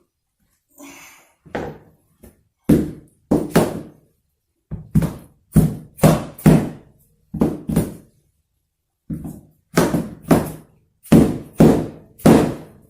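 Repeated heavy knocks struck into a maple hardwood floor plank, about fifteen blows in uneven pairs and short runs, each a solid thunk.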